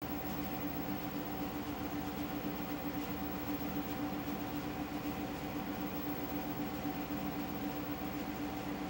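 Steady mechanical hum with two constant pitched tones over an even hiss, unchanging throughout.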